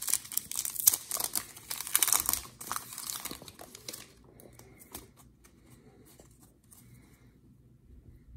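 Foil wrapper of a Donruss football trading-card pack crinkling and tearing as it is opened by hand. After about four seconds it dies down to faint rustling as the cards are handled.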